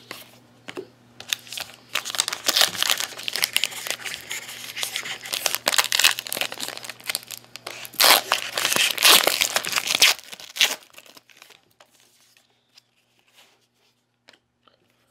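A trading-card pack's wrapper being torn open and crumpled, a crackling, crinkling rustle that is loudest a little past halfway and stops about two-thirds of the way through, leaving only a few faint clicks of card handling.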